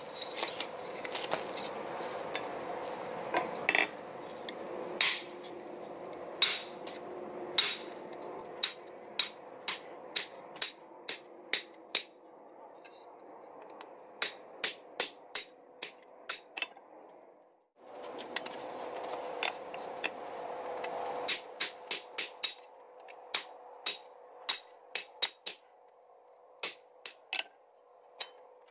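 Blacksmith's hammer striking hot metal on an anvil in runs of sharp, ringing blows, about two to three a second at their fastest, with short pauses between runs. A steady hum runs underneath.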